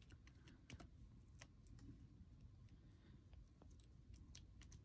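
Near silence: faint, irregular light clicks and taps over a low room hum.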